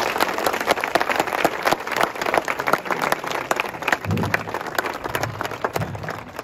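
A crowd of students applauding, many hands clapping at once in a dense, irregular patter.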